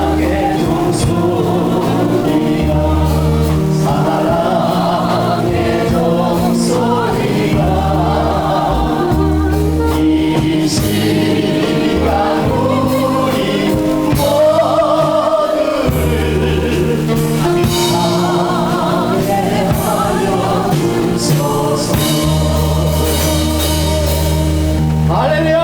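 Choir singing a gospel hymn over instrumental accompaniment, with long held bass notes moving in steps under the voices.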